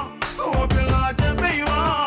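Background music: a song with a singing voice over a steady beat with drums and bass.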